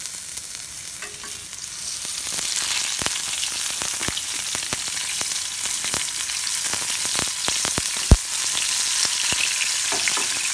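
Masala-marinated tiger prawns shallow-frying in a little hot oil in a pan: a steady sizzle that grows louder about two seconds in, with scattered crackling pops. A single sharp knock comes about eight seconds in.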